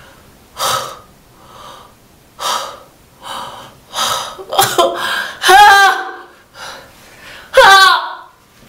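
A woman's sharp, gasping breaths, one after another, then two loud, wavering cries of pain about two seconds apart as she works a hair-removal strip under her armpit.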